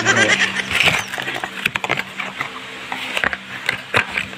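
Close handling noise: irregular clicks, knocks and rubbing as hands move plastic pipe fittings right at the microphone.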